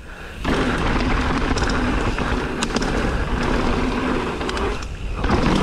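Mountain bike descending rough trail: a steady rush of wind on the camera mic with the bike's tyres and frame rattling over the ground, the noise dropping briefly at the start and again near the end.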